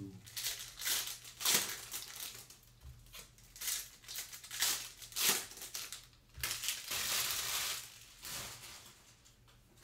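Foil trading-card pack wrapper crinkling and crumpling as it is handled and opened in gloved hands: a series of short rustles, with a longer crinkle about seven seconds in.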